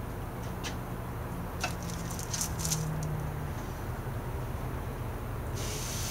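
A few light clicks and taps, then, near the end, a sudden sizzle as a buttered sandwich is laid on a hot cast-iron griddle grate.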